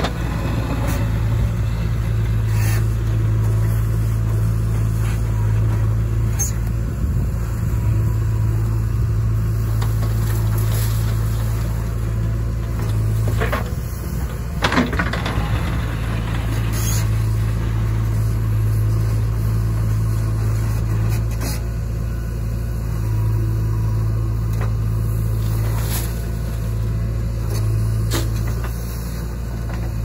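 JCB backhoe loader's diesel engine running steadily under hydraulic load as the backhoe arm digs soil, with a few brief knocks and scrapes from the bucket.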